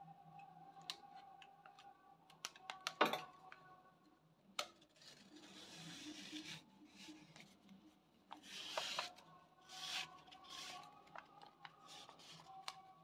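Stiff craft paper rustling and crinkling as a rolled paper tube is handled and pressed, with small clicks and taps; a sharp tap about three seconds in is the loudest.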